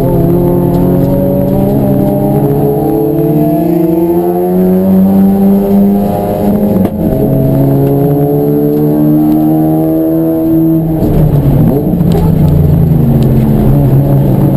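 Race car engine running hard under acceleration: its pitch climbs, drops sharply about halfway through at a gear change, climbs again, then falls and wavers near the end as the car slows.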